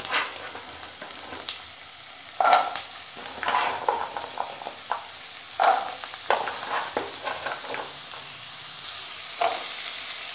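Diced potatoes sizzling in hot oil in a kadai, with a steady hiss and a spatula scraping and knocking against the pan every second or two as they are stirred.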